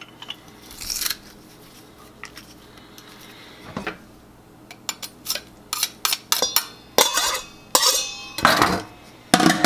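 Garlic press and kitchen knife working over a stainless steel bowl: a short squeeze about a second in, then a quick run of sharp metal clinks and scrapes in the second half as the garlic is scraped off the press, some clinks ringing briefly.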